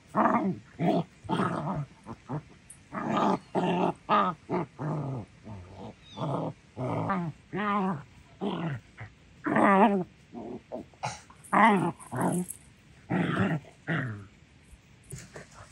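Two dogs play-fighting, growling at each other in many short bursts, some with a wavering pitch, dying away near the end.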